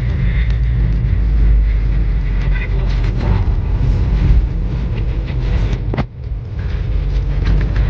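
Car driving, with a steady low road rumble and scattered light ticks, and a single sharp knock about six seconds in.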